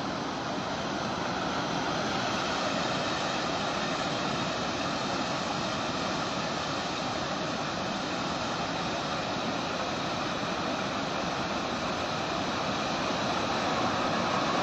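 Steady rushing noise of a river in flood, an even roar with no breaks that swells slightly near the end.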